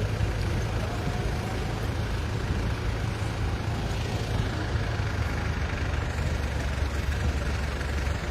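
Steady low rumble of a vehicle engine idling, with the general noise of a busy street around it.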